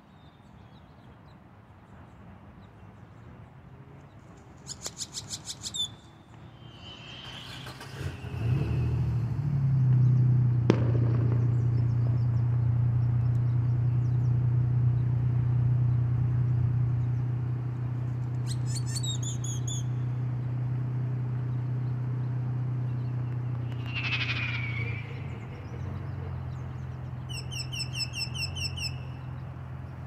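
Small birds chirping in three short bursts of rapid high notes. Under them, a low steady engine drone sets in about eight seconds in and is the loudest sound, easing off near the end.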